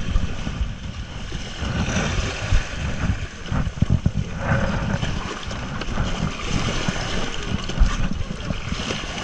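Wind buffeting the microphone in uneven gusts: a low, fluttering rumble over a steady hiss.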